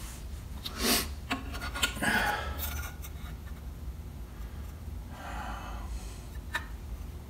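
Handling noise from a metal outboard water pump base plate being slid down the driveshaft and set onto the lower unit's gear case by hand: a few light knocks, then a rubbing scrape in the first three seconds, and a smaller rattle and click later on.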